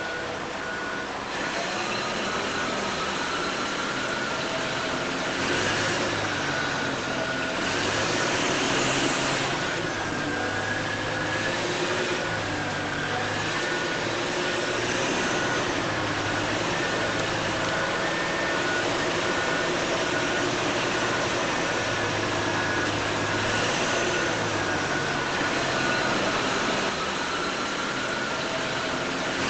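Small electric motors and gearboxes of radio-controlled toy construction machines whining steadily, the pitch wandering up and down as they work, with a few short rushes of noise.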